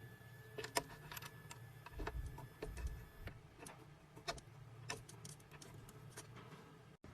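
Faint, scattered clicks and light metallic taps, about a dozen, irregularly spaced, from a key and the clamp of a CNC key-cutting machine being handled. A faint steady high tone stops about a third of the way in.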